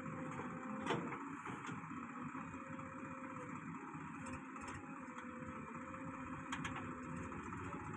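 JCB 3DX backhoe loader working its digging arm, the diesel engine running steadily with a steady whine over it. Two sharp knocks sound, about a second in and again late on.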